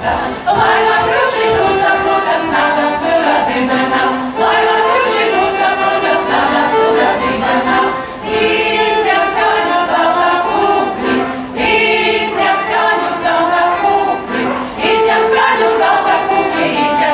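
A Latvian folk ensemble, mostly women's voices, sings a folk song together, with a violin playing along. The singing comes in phrases of about four seconds, with a brief break for breath between them.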